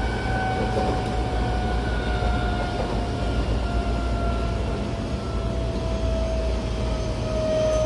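Tokyo Metro 08 series train heard from inside the car: the whine of its Mitsubishi IGBT VVVF inverter and traction motors, a steady tone slowly falling in pitch as the train slows, over the low rumble of wheels on rail.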